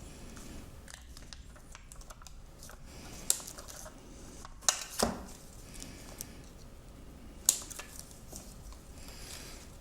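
Small parts being handled on a workbench: about four sharp clicks and taps, spaced irregularly over several seconds, over a faint low background noise.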